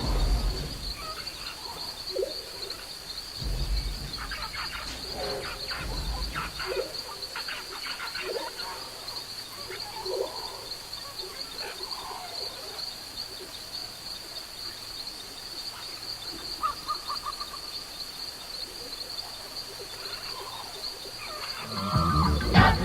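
Forest wildlife ambience from a Forest Moon of Endor soundscape: a steady high buzz under scattered short croaking calls and chirps, with a few low thuds in the first seconds. Near the end a loud burst of cries and rumbling starts.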